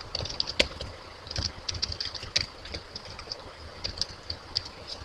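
Typing on a computer keyboard: irregular runs of quick key clicks, with a pause of about a second partway through.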